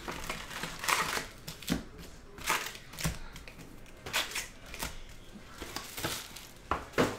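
Foil-wrapped trading-card packs being pulled from a cardboard hobby box and stacked, giving irregular rustles, crinkles and light cardboard scrapes, with a louder one near the end.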